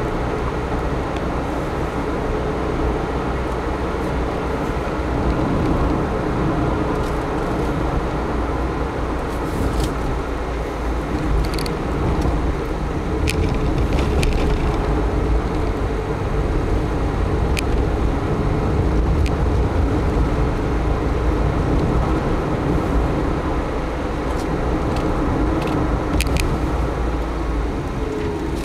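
A car driving along a town street: steady engine and road noise, with a few faint ticks.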